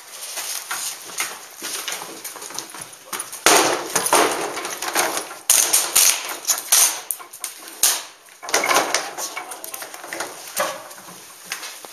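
Airsoft rifles firing in rapid bursts of sharp clicks and cracks, with BBs striking hard surfaces in a small room. The densest bursts come about three and a half seconds in, around six seconds and about nine seconds in.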